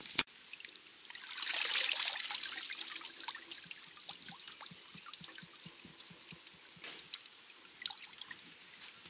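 Cold water from a garden hose pouring and trickling into a container, swelling about a second in, then thinning to scattered drips and small splashes. A sharp knock just after the start.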